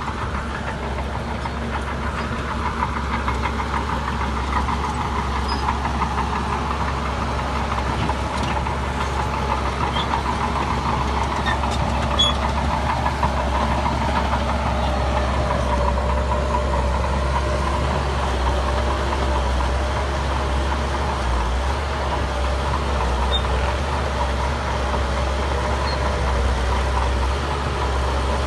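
Diesel engine of heavy earthmoving machinery running steadily through the whole stretch, its pitch drifting slowly up and down.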